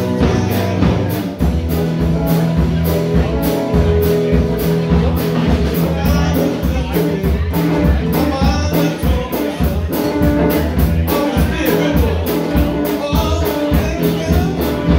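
Live rock band playing: electric guitars and electric bass over a drum kit keeping a steady cymbal beat, with a woman singing lead from about the middle on.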